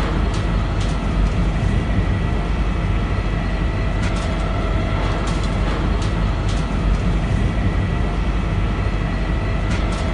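Steady industrial machinery noise: a continuous low rumble with a steady hum, and scattered light clicks and rattles.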